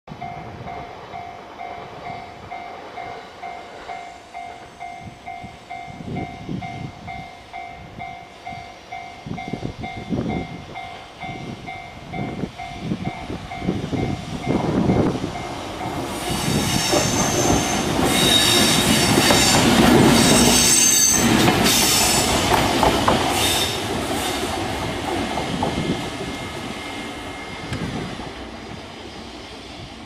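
A Japanese level-crossing warning bell ringing with a rapid, steady ding-ding. Over it an EF210 electric locomotive running light grows louder and passes close by, loudest about two-thirds of the way through, with high wheel squeal on the curve. It then fades away near the end.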